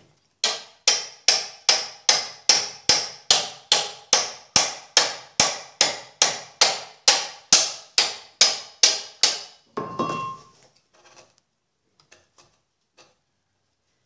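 Steel hammer striking the end of a washing-machine transmission shaft in steady metal-on-metal blows, about two a second, driving the shaft out through its bearings. The blows stop after about nine seconds, followed by a single ringing clank.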